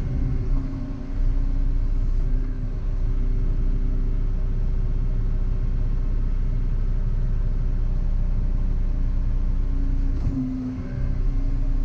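Volvo EC140EL tracked excavator's diesel engine running steadily while the arm digs in a ditch, its note dipping briefly about a second in and again near the end.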